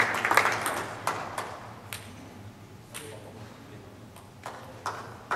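Applause dying away in the first second, then a few sharp, irregularly spaced ticks of a table tennis ball bouncing and being handled between points.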